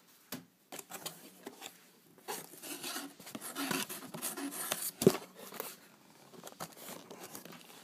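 Rustling and crinkling of packaging being handled while a boxed radio is unpacked, with scattered clicks and one sharp knock about five seconds in.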